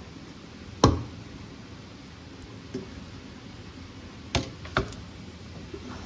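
A wooden spoon knocking against a stainless steel pot while cooked biryani rice is scooped out: one sharp knock about a second in, two more close together around four and a half seconds, and a few fainter taps between.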